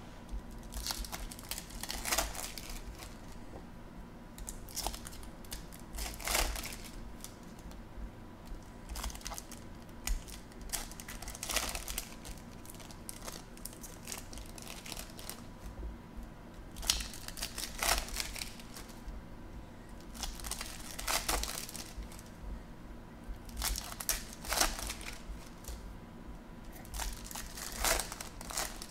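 Foil wrappers of Topps Chrome baseball card packs crinkling and tearing as they are ripped open by hand, in irregular short bursts every few seconds.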